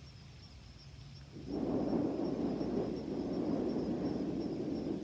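Deep, audible breathing: a long breath in and then a long breath out, starting about a second and a half in, with a short break between them.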